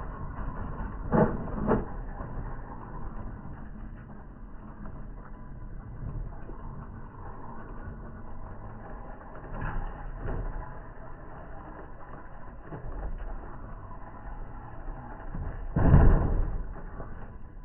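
Axial SCX10 III scale RC crawler working over rocks: a steady low noise of its drivetrain and tyres on stone, with louder scraping crunches about a second in, twice around ten seconds, and loudest near the end as it rolls onto loose gravel.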